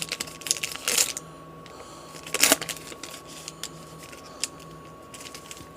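Baseball card pack being opened and its cards handled: short rustles and small clicks, with one louder rustle about two and a half seconds in.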